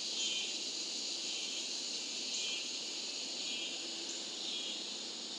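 A chorus of cicadas: a steady, high-pitched buzzing drone with a brief swell about every two seconds.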